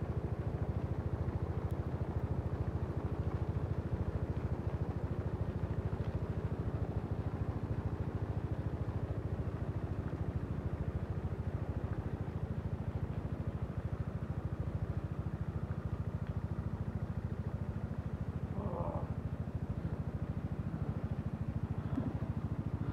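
An engine running steadily at one speed, a constant low drone.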